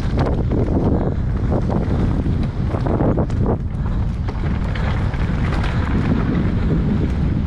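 Wind buffeting the microphone on a mountain bike descending fast, with tyres rolling over dirt and rock and the bike knocking and rattling over rough ground.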